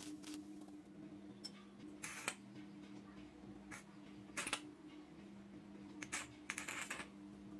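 Stick (arc) welding on small steel parts, crackling in several short bursts as brief welds are laid, over a steady low hum.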